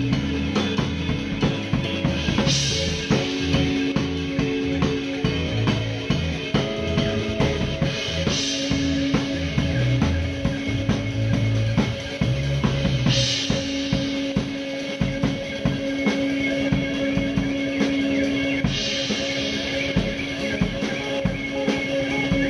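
Live jazz-fusion trio of drum kit, electric bass and electric guitar playing, the drums out in front with kick, snare and rimshots over a held note. Cymbal crashes come about every five to six seconds, four in all, and the drumming grows denser in the second half as the low bass notes thin out.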